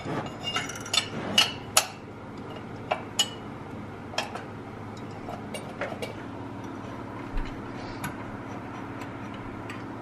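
Sharp, irregular metallic clicks and clinks of a socket wrench and bolts being worked in an engine bay, bunched in the first few seconds, then only a few scattered ones, over a steady low hum.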